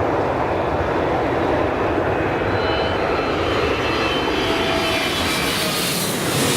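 Boeing 777F's twin GE90-110B1L turbofans running at taxi power: a steady rush with a faint high whine, growing hissier near the end.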